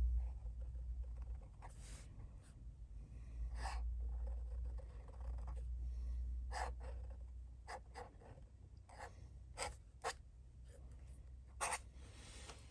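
Flexible nib of a Waterman 52V fountain pen scratching across paper in a series of short, irregular strokes, the loudest near the end, over a low steady hum.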